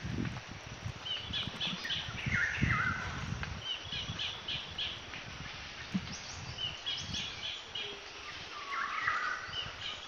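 Forest birds singing: about five short phrases of quick high notes, one every second or two, over irregular low rumbling on the microphone.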